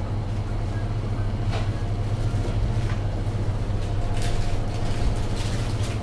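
Steady low hum of a grocery store's refrigeration, with a few faint clicks and knocks.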